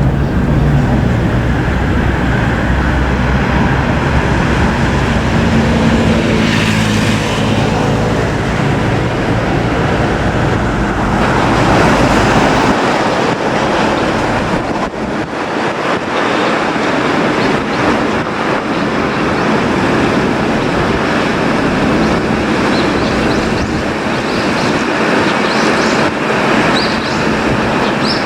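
A heavy fire truck's engine rumbling as it drives past, fading about twelve seconds in and leaving steady road traffic noise.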